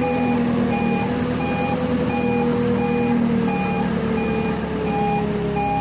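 A vehicle's reversing alarm beeping steadily, about once every 0.7 seconds, over the steady hum of a running engine.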